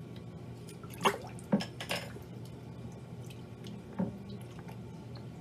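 Water splashing and dripping in a plastic bowl as a skinned cottontail rabbit carcass is rinsed by hand: a few short splashes about a second in and another near four seconds, over a steady low hum.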